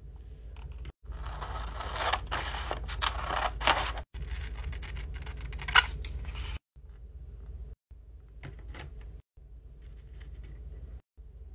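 Scissors snipping through paper, with sharp crunchy cuts and paper rustling as sheets are handled. The loudest snip comes near the middle. Several short takes are spliced together, each with a low hum underneath.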